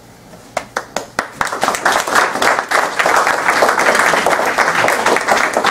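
Audience applauding: a few scattered claps about half a second in, quickly building into dense, steady applause.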